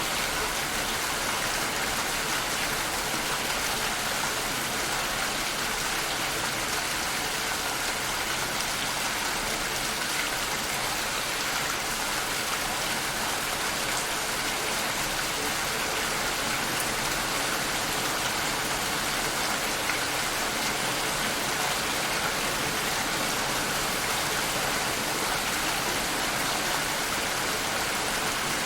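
Steady rain falling, an even, unbroken hiss of many drops with no pauses or changes.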